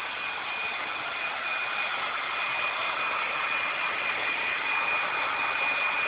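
Hair dryer running steadily: an even rush of air with a thin, steady whine from its motor.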